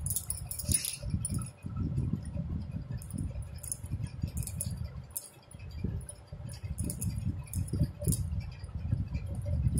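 Hands working a metal crochet hook through yarn close to the microphone: irregular rubbing and handling rumble, with many small light clinks scattered throughout.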